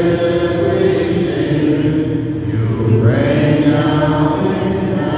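Voices singing a hymn in chant style, with long held notes.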